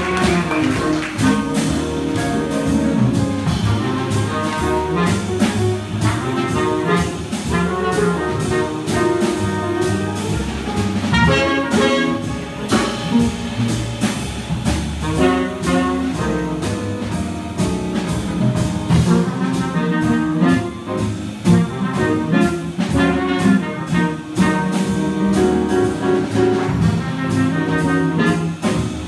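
Live small jazz group playing a blues: a horn carries the lead line over upright bass and drums with steady cymbal time.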